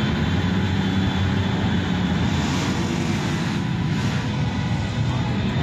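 Motorcycle engines running steadily as riders set off at the start of an endurance ride.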